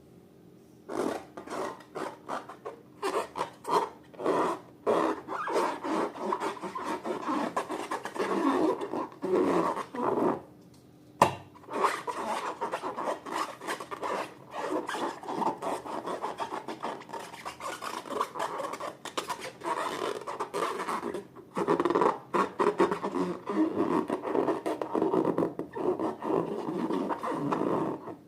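Slime being mixed and squished, a dense crackling rub in quick strokes. It breaks off about ten seconds in, with one sharp click.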